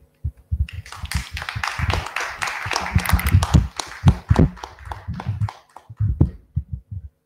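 A small audience applauding at the end of a lecture. The clapping builds about a second in and dies away about five and a half seconds in, with a few low thumps near the end.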